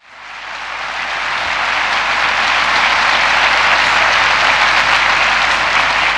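Audience applauding, swelling over the first second or two and then holding steady.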